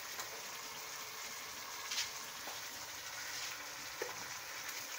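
Sliced peppers, onion, tomatoes and olives sizzling in hot oil in a stainless steel skillet: a steady frying hiss, with two brief knocks, about two seconds in and about four seconds in.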